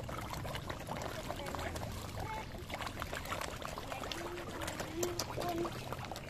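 A crowd of koi splashing at the pond surface as they jostle for food: a dense, irregular patter of small wet splashes and pops.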